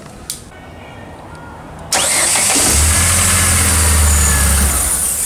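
Chevrolet Blazer starter motor run on the bench from a battery, spinning freely: a faint click, then about two seconds in it starts suddenly with a steady high whine and low hum for about three seconds before winding down near the end. This is the sound of a working starter.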